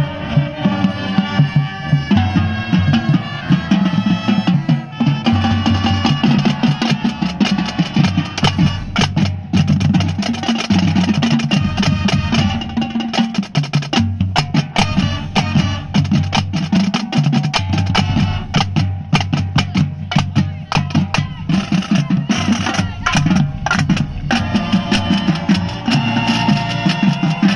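High school marching band playing live on the field: brass and woodwinds hold chords. Through the middle, rapid drum strokes from the percussion take over, and the horns come back in near the end.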